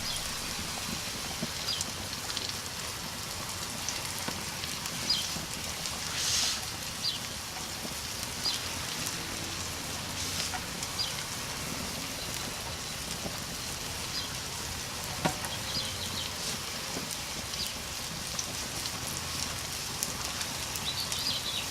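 Food sizzling on a gas grill: a steady frying hiss with scattered small pops and crackles.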